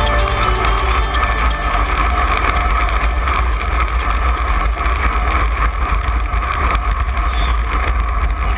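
Wind rushing over a handlebar-mounted camera on a road bike riding at speed, a steady rumbling rush with a faint whir.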